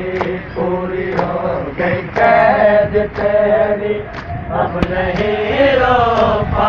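A group of men chanting a noha, a Muharram mourning lament, in unison and at full voice, with a few sharp slap-like hits among the voices.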